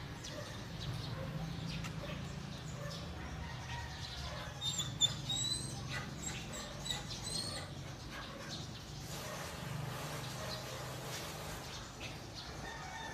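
A handful of short, high, rising animal calls a few seconds in, over a steady low hum.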